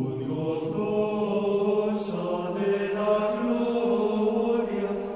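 Plainchant sung by men's voices: long held notes that change pitch slowly, with a few soft consonants between them.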